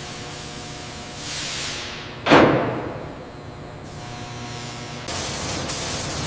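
A swelling whoosh followed by one heavy impact that rings away over about a second, then a steady hiss that starts about five seconds in.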